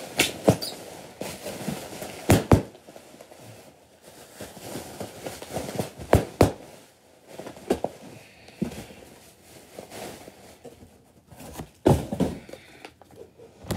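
Handling noise: scattered thumps and knocks, with some rustling of plastic packaging, as gift items are moved about and put away close to the microphone.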